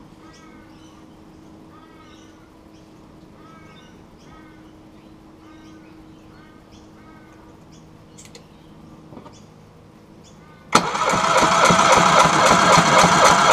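Yamaha 50 HP four-stroke outboard being cranked over by its starter for a compression test, throttle wide open. The cranking cuts in suddenly near the end and runs about three seconds with an even, rhythmic pulse. Before that there are only faint bird chirps and a couple of small clicks.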